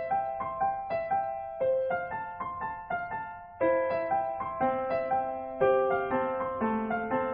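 Background piano music: a tune of struck single notes and chords, several notes a second.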